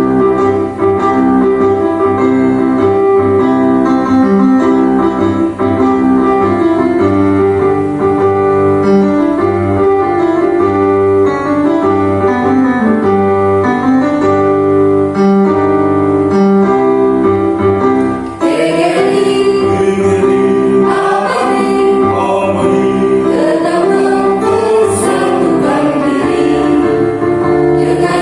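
An instrumental introduction of steady, held chords, then a children's school choir comes in singing with the accompaniment about two-thirds of the way through.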